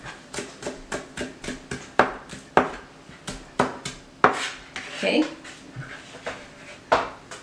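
Chef's knife finely chopping cilantro stems on a cutting board: a run of quick, uneven knife strikes, a few a second.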